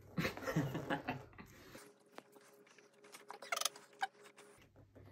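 Faint scratching, rustling and clicking of hands working at the foil, wire cage and cork of a Prosecco bottle, with a brief squeak about three and a half seconds in; the cork does not pop, as the bottle will not open.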